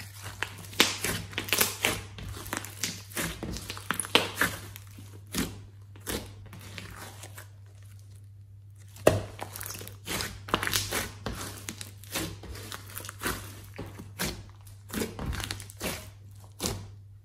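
Clay slime being squeezed, stretched and poked by fingers: a run of irregular sticky pops and crackles, with a short lull about eight seconds in and a sharp pop just after it. A steady low hum runs underneath.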